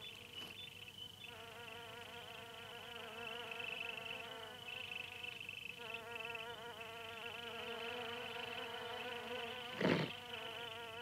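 Insects buzzing in a faint, steady, wavering drone, with one short knock about ten seconds in.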